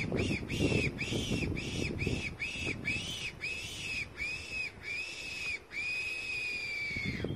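Hand-blown fox whistle squealing in a run of short rising-and-falling squeals, about two to three a second, ending in one long drawn-out squeal. It is a predator call imitating a rabbit in distress to draw foxes in.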